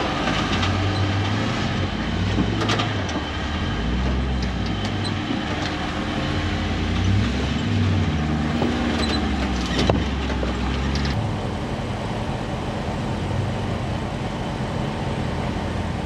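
Off-road 4x4 engine working at low speed, its note rising and falling as the throttle is worked, with a few sharp knocks.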